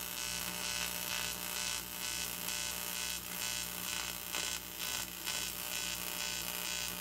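TIG welding arc from a Lincoln Precision TIG welder, a steady electric buzz with a hiss over it, wavering slightly in level as the bead is run on a small metal plate.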